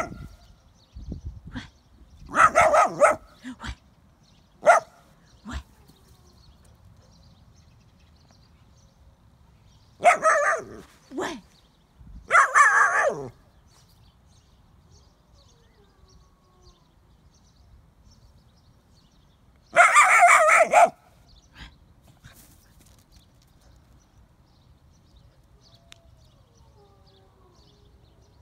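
Wolf-dog puppy barking in a few separate spells, with long quiet gaps between: a bark near the start, a run of barks around ten to thirteen seconds in, and one last loud bark about twenty seconds in.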